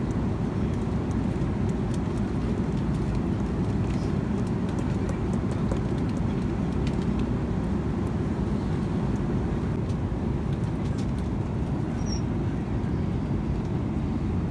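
Airliner cabin noise in flight: a steady, even low rumble of engine and airflow noise that does not change.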